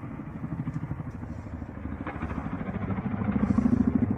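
Russian attack helicopter's rotor and turbines heard from inside the cockpit: a fast pulsing drone that grows louder about three seconds in.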